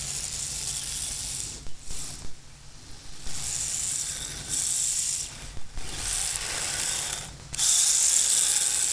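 Small electric motor and gears of an all-wheel-drive RC drift car whirring in on-off bursts as it is throttled, loudest near the end as the car comes close.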